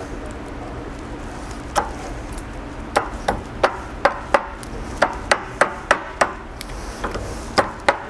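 A dozen or so sharp metallic taps and clicks, irregular and starting about two seconds in, as steel pliers work a retaining clip into the groove of a new U-joint bearing cup on a driveshaft held in a vise.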